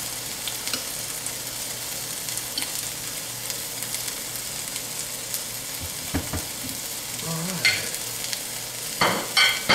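Chicken strips sizzling steadily in oil in a frying pan. Near the end come a few sharp clinks of utensils against the glass bowl.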